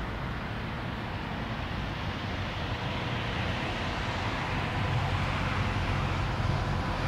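Twin-engine jet airliner on final approach, its engine noise a steady rumble that slowly grows louder as it closes in. A faint steady whine comes in over the second half.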